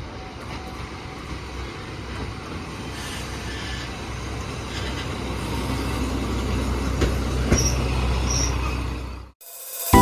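Diesel railcar running on the line, its engine and wheel-on-rail noise growing steadily louder over about nine seconds, then cutting off suddenly near the end.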